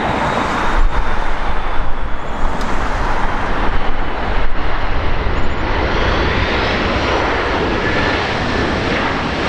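Jet engines of an Airbus A330-200 airliner on its landing run, a steady loud roar with a deep rumble underneath and a faint high whine.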